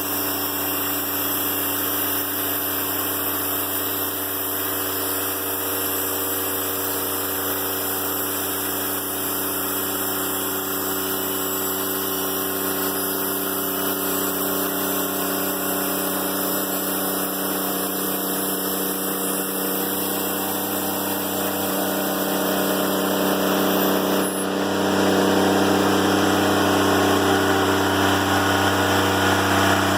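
Diesel engine of a Timberking 1400 sawmill running steadily, becoming louder about twenty-four seconds in.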